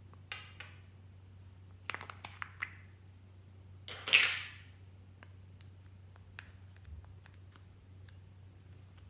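A small plastic tub being handled and opened: light plastic clicks in the first three seconds, then a short, loud rustling pop about four seconds in as it comes open. Faint scattered ticks follow as a metal tool scrapes the contents out.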